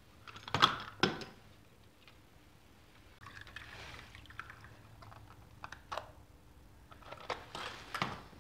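Small plastic pots and metal parts being handled around an ultrasonic cleaner's wire basket: two sharp knocks half a second apart about a second in, a short spell of liquid pouring or splashing, then a few light clicks and clatters.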